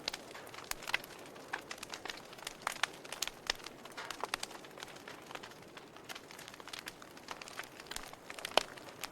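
Wood fire burning in a fireplace, crackling with irregular sharp pops over a soft hiss; the loudest pop comes near the end.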